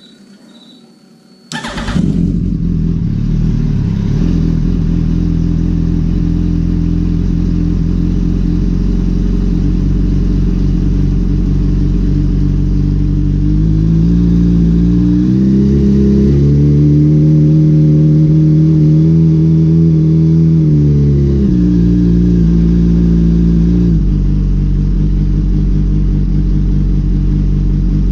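2005 Yamaha R1's inline-four engine starting up about a second and a half in, then idling. About halfway through it is brought up to a higher, held speed in steps for several seconds, then drops back to idle.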